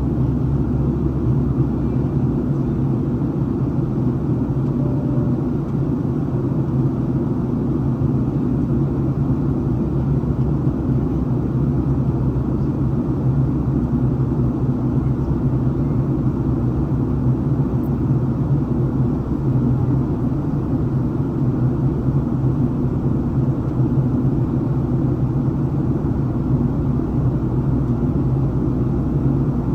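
Steady cabin noise of a Boeing 737-800 in flight, heard from a window seat inside the cabin: low, even rush of airflow and CFM56-7B jet engines with no change in pitch or level.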